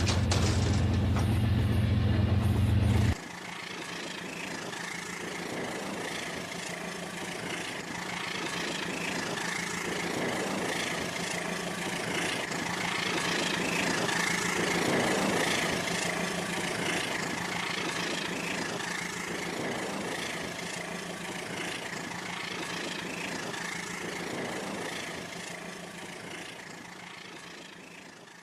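Rail King model train running along its track, growing louder to about halfway through and then fading away, with faint repeated knocks. The first three seconds are a louder, steady low hum that cuts off abruptly.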